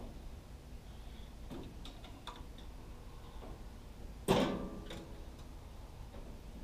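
Steel saw head of a Woodland Mills MH126 portable sawmill being handled on its frame, engine off: a few light clicks, then about four seconds in one loud metallic clank that rings briefly.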